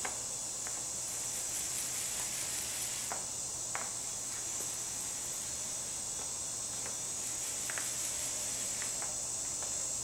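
Paint roller working wet DuraTex roller-grade texture coating onto a speaker cabinet, giving faint sticky crackles and scrapes, under a steady high-pitched hiss.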